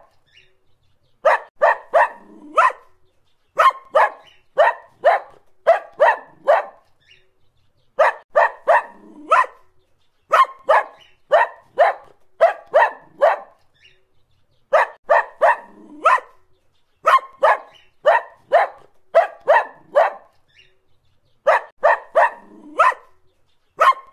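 A dog barking in runs of quick, sharp barks, about three a second, with short pauses between runs in an evenly repeating pattern.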